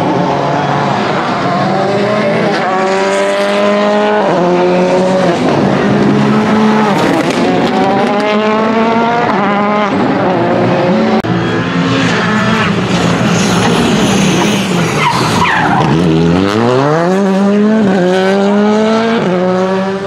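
Rally car engine at full throttle, climbing in pitch through gear after gear with a drop at each upshift, and occasional sharp cracks. About three-quarters through, the revs fall away low as it slows for a corner, then climb again as it accelerates out.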